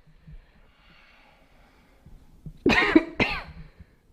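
A person coughs twice in quick succession, near the end.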